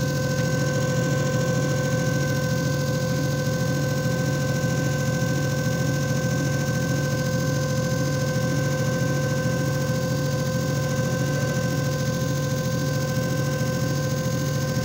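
JFJ Easy Pro disc repair machine running a timed repair cycle. Its motor gives a steady hum with a constant whine over it.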